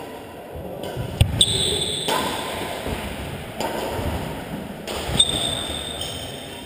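Badminton rally on a hall court: a few sharp racket hits on the shuttlecock and sports shoes squeaking on the court floor twice, with shuffling footsteps between.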